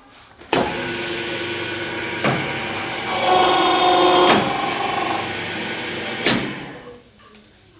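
Key-cutting machine starting with a sharp click, its motor running steadily, then growing louder and brighter for a second or so as the cutter works a key blank, with a few sharp clicks, before it winds down near the end.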